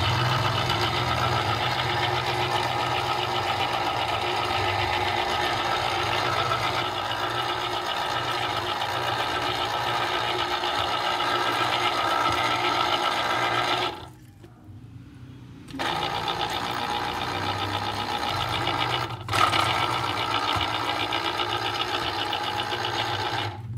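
Small electric citrus juicer running, its motor spinning the reamer under an orange half pressed down on it with a steady whir. It cuts out for about two seconds past the middle, again for a moment a few seconds later, and once more at the end.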